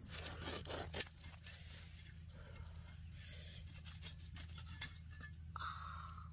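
Cleaver cutting through the charred, crisp skin and meat of a whole grilled crocodile, crackly at first, with a few sharp clicks as the blade goes through.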